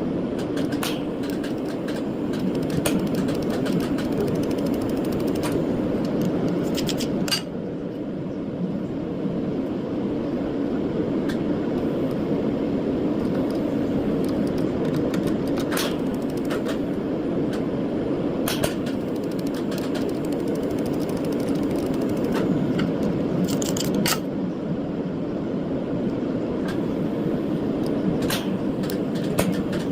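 A steady machine hum with sharp clicks every few seconds.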